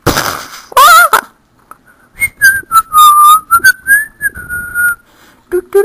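A short hiss-like burst at the very start, a brief loud wavering voice sound, then a person whistling a single wavering tone for about three seconds.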